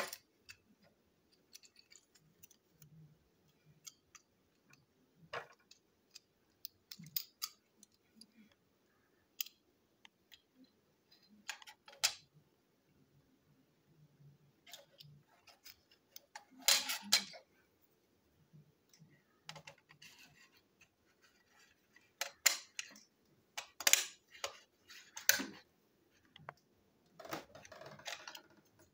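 Small plastic toy train parts being handled and fitted together by hand: irregular clicks and clatters of hard plastic, sparse at first and busier a little past halfway and over the last few seconds.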